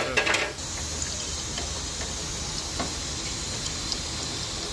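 A short clatter of tools on metal at the start, then a steady low hum and hiss with a few faint ticks while a pipe wrench is fitted onto the blower's bearing hub.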